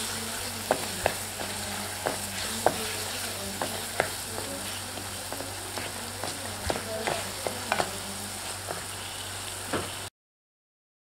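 Tomatoes, onion and spices sizzling in oil in a pan while a wooden spatula stirs and mashes them, with scattered sharp knocks of the spatula against the pan. The sound cuts off suddenly about ten seconds in.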